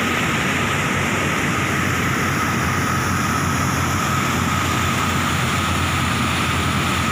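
Loud, steady rush of turbulent muddy water pouring over a concrete weir into a foaming torrent.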